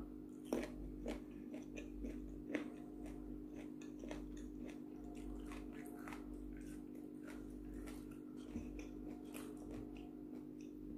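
Close-up chewing of raw round eggplant: a bite followed by crisp crunching clicks, most of them in the first few seconds, over a steady low hum.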